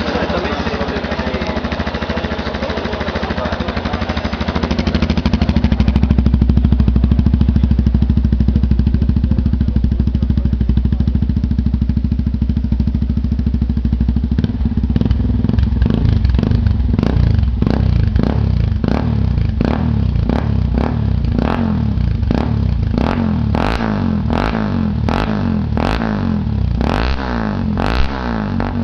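Yamaha Ténéré 250's single-cylinder four-stroke engine running through a Coyote 2 Way aftermarket exhaust tip. It idles steadily at first, then from about halfway through is revved in a string of quick throttle blips that come closer together near the end.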